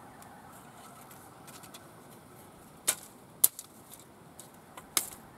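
A large camp knife chopping into a dry wooden stick: three sharp strikes in the second half, with a few lighter taps between.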